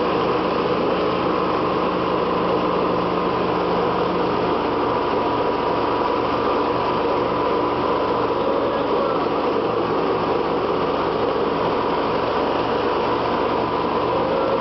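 Riding lawn mower's 18 hp Briggs & Stratton V-twin engine running steadily.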